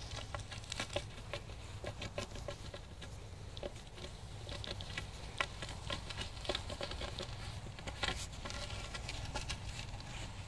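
Pomeranian gander nibbling and biting at the end of a wooden stick: a rapid, irregular run of small clicks and snaps from his bill on the wood.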